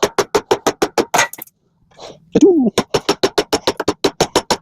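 Rapid, even clicking, about eight clicks a second, in two runs with a pause of about a second between them. A short tone rises and falls in pitch at the start of the second run.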